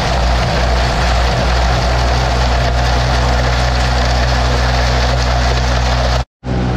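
Tractor engine running steadily at PTO speed, driving the forage wagon's unloading apron and the silage blower, with chopped corn silage pouring into the blower hopper. The sound cuts out completely for a split second near the end, then carries on.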